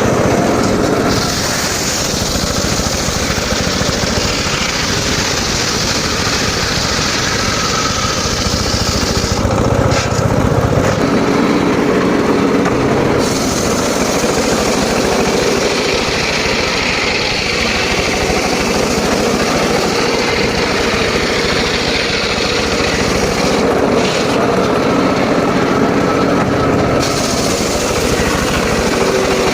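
Homemade circular saw rig sawing teak wood: a loud, continuous machine sound of motor and blade running. Its tone shifts about ten seconds in and again around twenty-four seconds.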